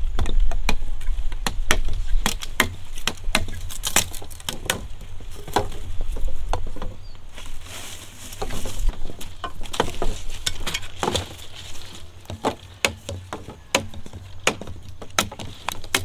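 Knives chopping and trimming harvested sugar cane stalks: irregular sharp chops and clacks, several a second at times.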